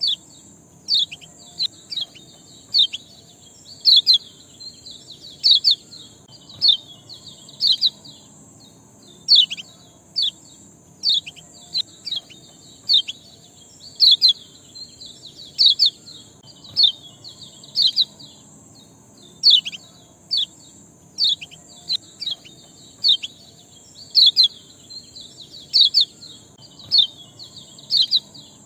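A small songbird repeating a short, sharp 'ciak' chirp that sweeps down in pitch, about one or two a second at an uneven pace, the kind of call played as a lure to set cage birds singing. A steady high hiss and a faint low hum run beneath it.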